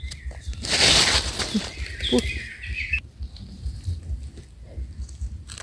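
A bird calling in a wavering high voice that stops abruptly about three seconds in, with a short loud burst of noise about a second in and a low rumble underneath.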